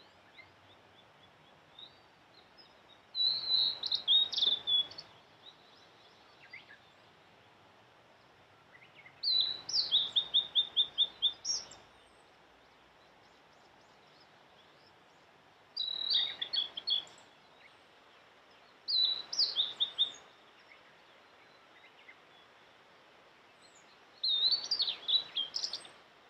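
Male blue-and-white flycatcher singing: five separate phrases of clear, high whistled notes, each a second or two long with a quick run of repeated notes, and pauses of a few seconds between them.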